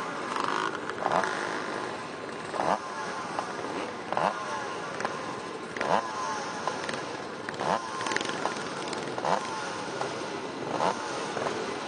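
Vintage motocross motorcycle engine idling and being blipped on the throttle, a short rising rev about every one and a half seconds.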